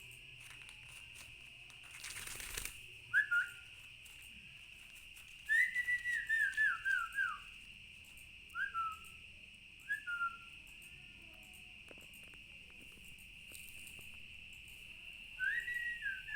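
Clear whistled notes that step down in pitch, in short runs. There is a long falling run about five to seven seconds in, short single whistles around three, eight and a half, and ten seconds, and another falling run near the end.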